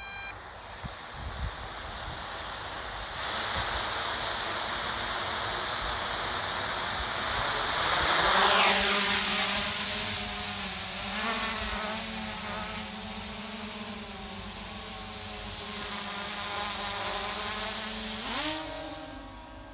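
MJX Bugs 3 brushless quadcopter's motors and propellers whirring as it takes off. It is loudest and drops in pitch about eight seconds in, then settles into a steady buzzing hum, which rises in pitch near the end as it climbs.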